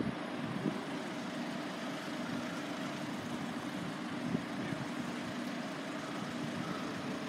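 A steady low engine rumble with a faint constant hum.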